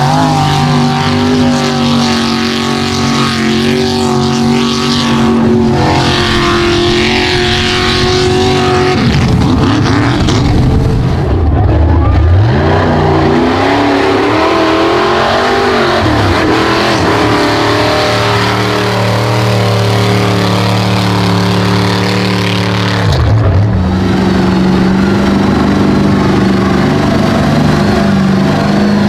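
Loud engines of modified Ford mud trucks under hard throttle, the engine note changing several times as one truck gives way to the next, with a rising rev about twelve seconds in.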